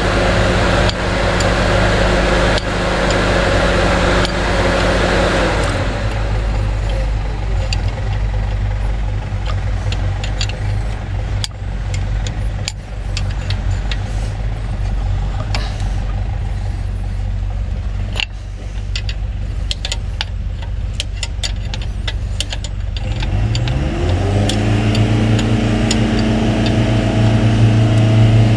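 Diesel engine running steadily, louder for the first five seconds or so, with scattered metallic clicks of a wrench on the fuel lines. About 23 seconds in the engine revs up and holds at a higher speed, dropping back at the very end.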